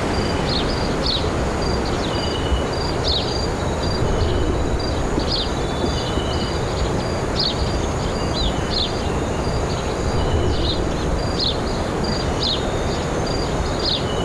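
Tropical forest ambience: a steady rushing background with short high chirps about once a second and brief whistled notes from birds and insects.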